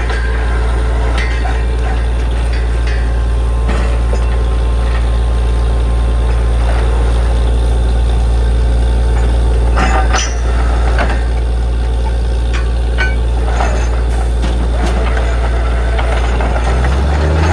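Heavy diesel engine of a borewell drilling rig running steadily, with scattered metallic clinks and knocks. The engine note changes near the end.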